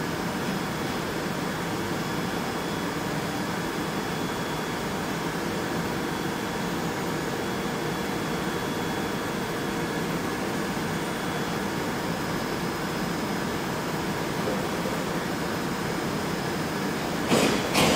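Steady hum and hiss of a stationary London Underground 1973 Stock Piccadilly line train, its onboard equipment running while it stands at the platform, with faint high steady whines. Near the end come two short, loud sharp sounds about half a second apart.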